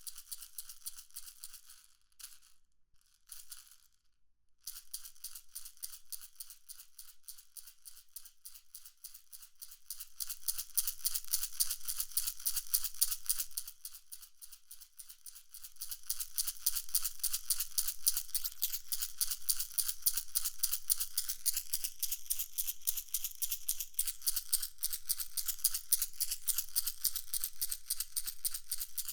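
A rapid, high-pitched rattling train of short clicks, with nothing below about 1 kHz, played through a synthetic-HRTF binaural 3D panner so that its tone shifts as the sound is moved around the listener's head. It nearly drops out for a couple of seconds early on, then grows louder about ten seconds in.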